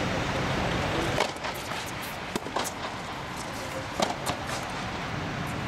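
Tennis balls being struck by rackets and bouncing on an indoor court during a serve and rally: several sharp pops, the loudest about two and a half and four seconds in. A steady low rumble runs underneath.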